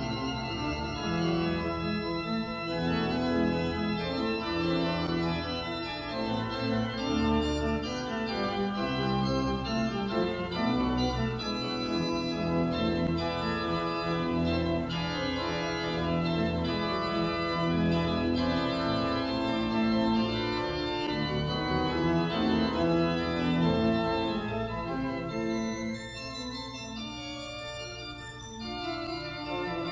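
Organ music: full sustained chords that change every second or two, briefly softer near the end.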